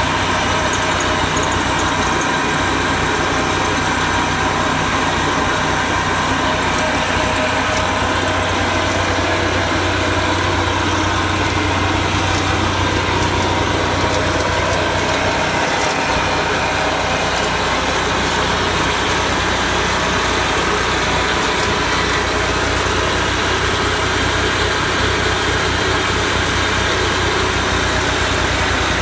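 Engine of a Zenoah ZHM1500 self-propelled crawler flail mower running steadily at idle, in good working order.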